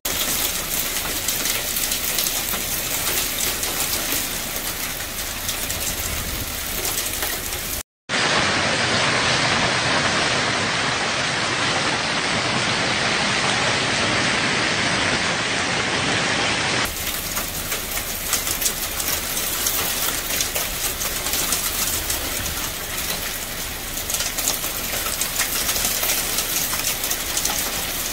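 Hail and heavy rain pelting down: a dense, steady hiss of countless small hits. It drops out for an instant about eight seconds in and changes tone abruptly near seventeen seconds.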